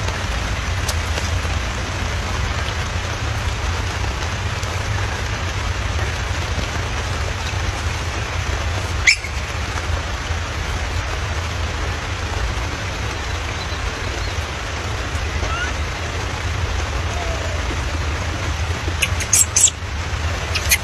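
Steady background hiss with a low rumble underneath, with a sharp click about nine seconds in and a few clicks near the end.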